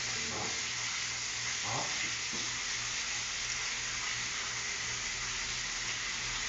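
Meat frying in a pan on an electric stove, a steady sizzle, with a few faint clinks early on.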